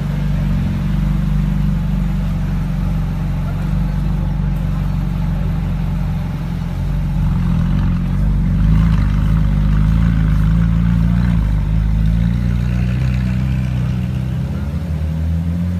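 A sports car engine running at low revs, a steady low engine note that rises a little partway through.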